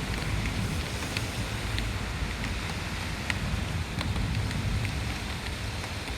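Steady heavy rain during a thunderstorm, with wind buffeting the microphone in a low rumble and scattered sharp ticks of drops striking nearby surfaces.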